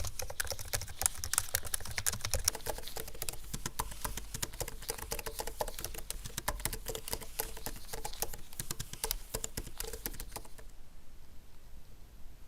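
Fast typing on the Apple Magic Keyboard for iPad Pro: a dense, rapid patter of key clicks that stops about two seconds before the end.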